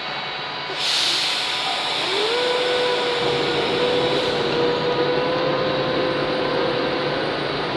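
Electric train at a station platform: a sudden hiss of air about a second in, then a motor whine that glides up and holds at one steady pitch for about five seconds.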